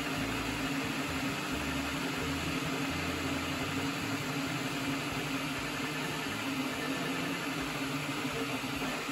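Flashforge Adventurer 5M CoreXY 3D printer printing: a steady whir of its fans with the stepper motors humming underneath, their low tones changing every fraction of a second as the print head darts about at high speed.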